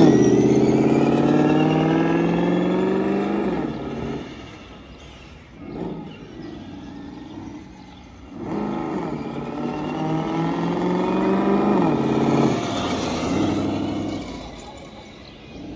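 Software-simulated straight-piped HEMI V8 engine sound from the loudspeaker of an RC pickup truck, revving up and dropping back as the truck drives. It is loud and falls away at first, rests at a low rumble with a short blip, climbs again, and fades near the end.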